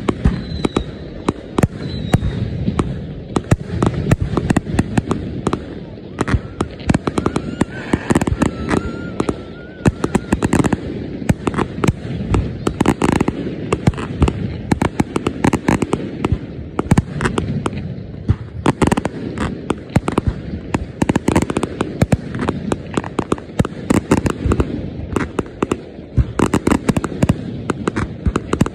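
Fireworks display: aerial shells launching and bursting in a rapid, unbroken barrage, several bangs a second.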